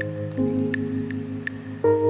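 Background music: held chords over a light, even ticking beat, the chord changing about half a second in and again near the end.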